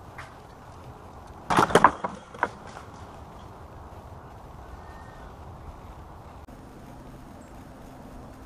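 Homemade wooden squirrel catapult firing: the arm swings up and slams against its stop with a quick rattle of loud wooden knocks about one and a half seconds in, followed by a single lighter knock about half a second later.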